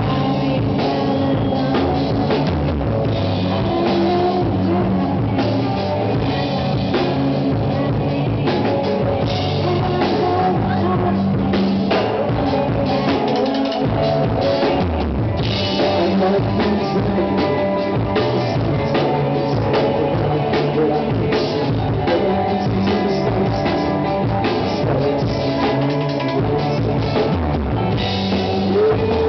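Live rock band playing, with drum kit and electric guitar driving a steady beat.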